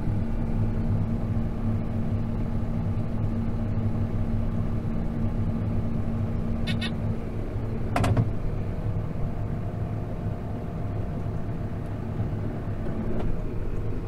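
Tractor engine running steadily while a round baler works straw behind it. A single sharp knock about eight seconds in.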